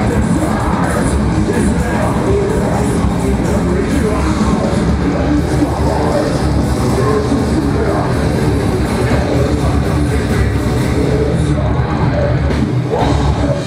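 Heavy metal band playing live at full volume: distorted electric guitars, bass and drums in a dense, unbroken wall of sound, recorded from among the audience.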